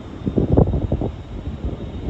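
Gusty wind buffeting the microphone in uneven low rumbles, strongest about half a second in.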